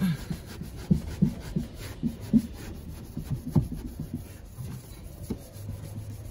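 Scrubbing pad tool rubbing back and forth over wet, soapy rear-window glass in short, uneven strokes, removing leftover adhesive from old window tint film.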